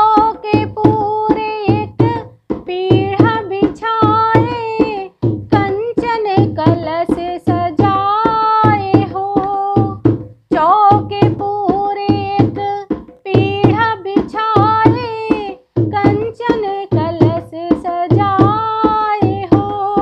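A woman singing a Hindi Karwa Chauth devotional bhajan in long held, wavering notes, over a steady hand-drum beat.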